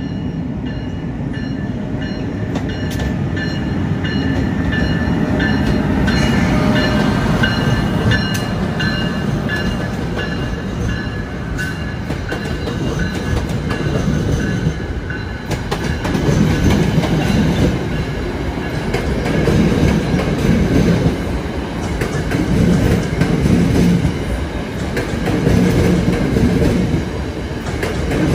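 A train running on the tracks close by: a steady rumble of wheels on rail, with faint high-pitched tones and scattered clicks. From about halfway the rumble swells and fades in a rhythm of roughly every three seconds as the cars go by.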